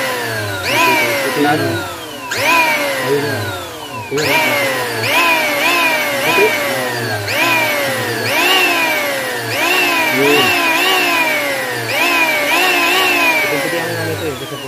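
HiKOKI (Hitachi) P20SB electric planer's motor revved in repeated short trigger pulls, its whine rising quickly and winding down about once a second.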